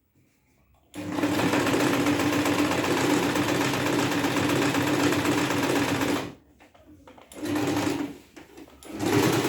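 Usha Janome electric sewing machine running steadily for about five seconds, starting about a second in, then stopping. It is followed by two short bursts of stitching near the end.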